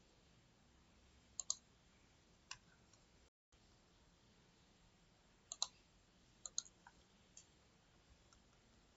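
Computer mouse buttons clicking over near silence: several short clicks, some in quick pairs.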